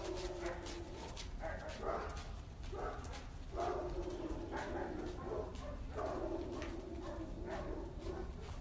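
Labrador puppy whining: several drawn-out, wavering whines one after another, with light clicks and ticks between them.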